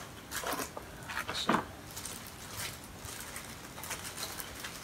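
Cardboard box and plastic bag packaging rustling and crinkling in the hands as a small LED video light is pulled out of its box, in short irregular bursts.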